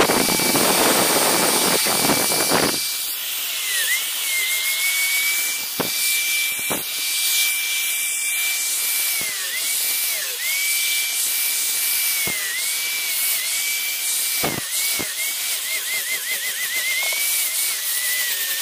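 Electric angle grinder with a sanding disc running at a high whine while sanding carved teak. The first couple of seconds are louder and scratchy with the disc pressed hard on the wood. After that the whine dips in pitch again and again as the disc bites and is lifted off.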